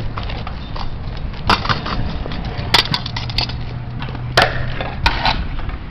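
Kick scooter rolling on pavement, with about five sharp clacks and knocks of its wheels and deck striking the concrete.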